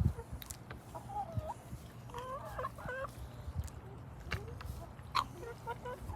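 Domestic hens clucking as they feed on rice, in short wavering calls, with a few sharp taps in between.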